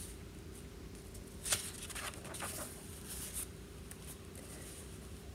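Faint paper rustling as book pages are handled and turned: a few short soft rustles about one and a half to three and a half seconds in.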